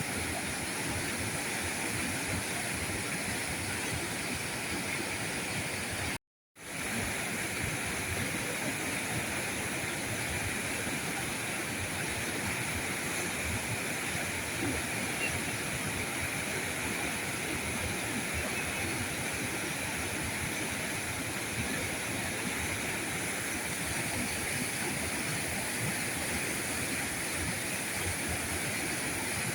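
River current rushing and gurgling in a steady, even flow. About six seconds in, the sound drops out completely for a split second, then comes straight back.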